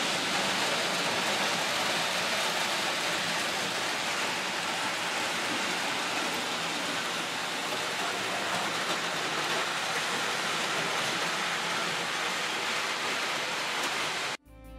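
Several Märklin H0 model trains running on the metal M-track, a steady rushing rattle of wheels on the rails. It cuts off suddenly just before the end, where guitar music begins.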